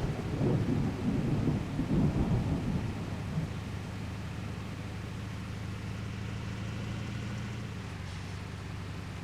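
Water truck's engine running with a steady low drone, overlaid by irregular low rumbling for the first three seconds or so. The engine note drops slightly near the end.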